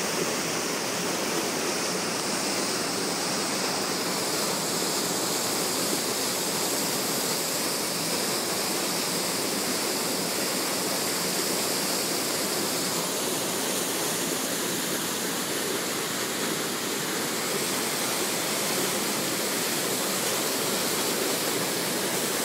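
Steady, unbroken rushing noise of a hurricane's rain and wind, holding an even level throughout.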